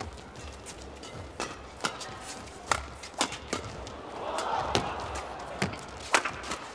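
Shuttlecock being struck back and forth with badminton rackets in a fast doubles rally: a series of sharp, short hits, roughly every half second to a second. A murmur from the crowd swells around four seconds in.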